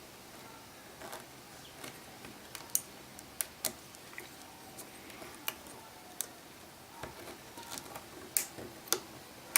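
Small metal repair tools clicking and tapping against the small parts of an iPhone 5C screen assembly while the camera holder is worked off. The light clicks come irregularly, a dozen or so, some in quick pairs.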